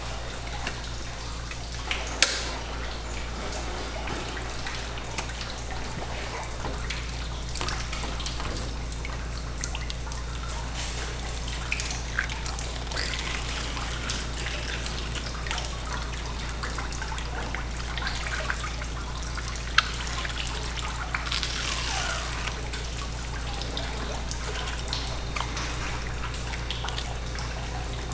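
Tap water trickling steadily from a faucet onto a wet eel-cleaning board, over a constant low hum, with a few sharp knocks as the eel is handled, the loudest about two seconds in and again about two-thirds of the way through.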